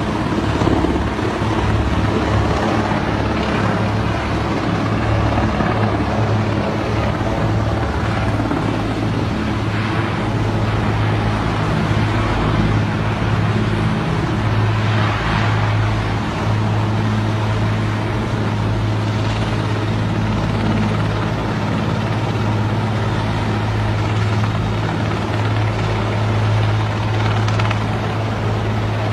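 Large helicopter flying past: a steady drone with a low rotor beat underneath.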